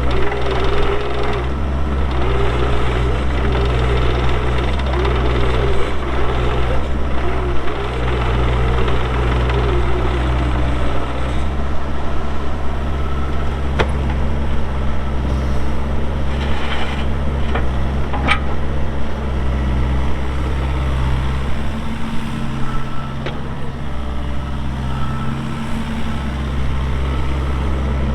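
A Bobcat E42 mini excavator's Kubota diesel engine running steadily as the machine is operated, with a wavering whine rising and falling over the first ten seconds and a sharp knock about two-thirds of the way through.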